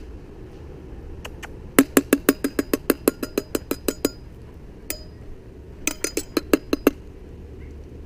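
Runs of sharp, evenly spaced clinking taps, about five a second: a longer run about two seconds in, a single tap, then a shorter run about six seconds in. The taps are a signal to call a lost cat.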